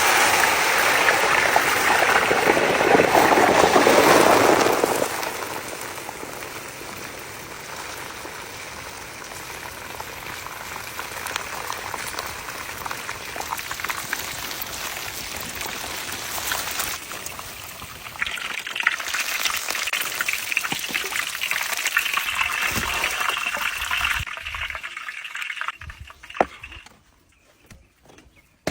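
Fish frying in hot oil, a steady crackling sizzle. It is loudest for the first five seconds, settles quieter, rises again for a few seconds past the middle, then dies down near the end.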